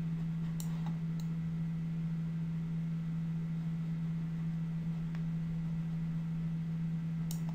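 Steady low hum in the recording, with a few faint clicks of a computer mouse.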